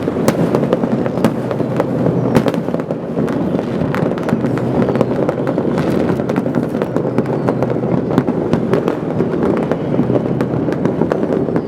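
Many fireworks going off at once: a dense, continuous rumble of bangs with sharp cracks several times a second and no pause.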